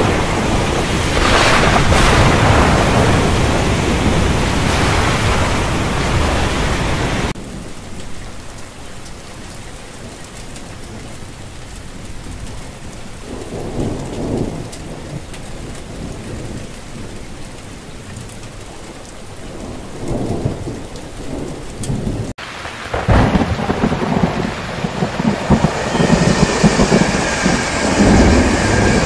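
Heavy rain with thunder rumbling for the first seven seconds, then a sudden change to softer, steady rain with a couple of low swells. About 22 seconds in, another hard cut brings in a passenger train passing on rails, louder and uneven, with steady high tones joining near the end.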